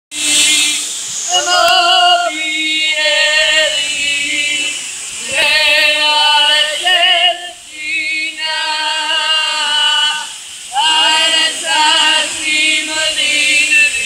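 Several young male and female voices singing a Georgian song together in harmony, in held phrases a few seconds long with short breaks between them.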